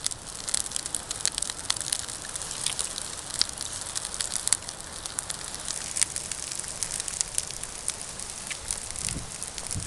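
Wood campfire burning, crackling with frequent sharp, irregular pops and snaps over a steady hiss.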